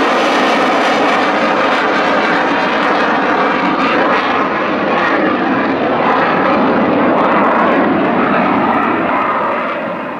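Eurofighter Typhoon's twin jet engines running loud and steady, the sound falling away just before the end.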